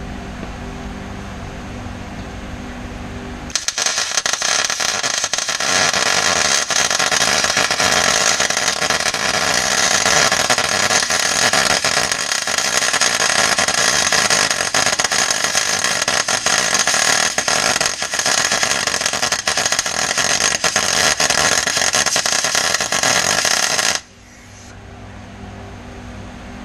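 Eastwood electric arc welder laying a weld bead on a rear axle tube: a loud, steady crackling hiss that starts a few seconds in, runs for about twenty seconds and cuts off suddenly near the end. A steady hum sits underneath before and after the weld.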